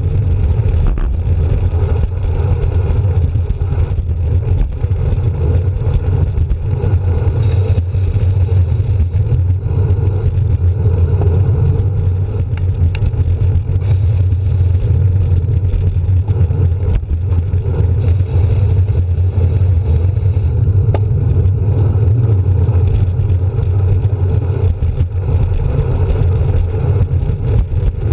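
Steady low rumble of wind and road noise from a moving bicycle, picked up by a handlebar-mounted camera.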